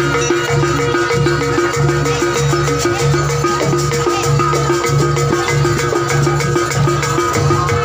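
Jaranan gamelan accompaniment playing loudly, with drums and percussion keeping a steady repeating rhythm and a high tone held over it.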